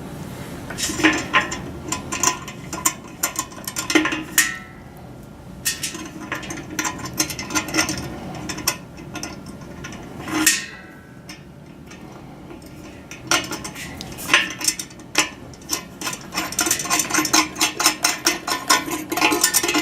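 Steel mounting hardware clinking and knocking as a washer and nut are fitted onto a U-bolt of a dish's pole bracket and tightened, irregular metal clicks with a quick run of rattling clicks near the end.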